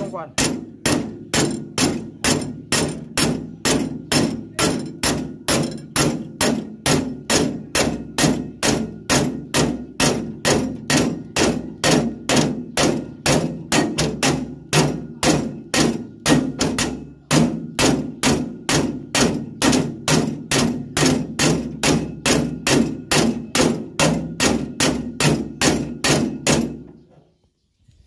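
Steady hammer blows on a steel punch held against the serrated knife sections of a rice harvester's cutter bar, metal on metal, about two and a half strikes a second. The hammering stops about a second before the end.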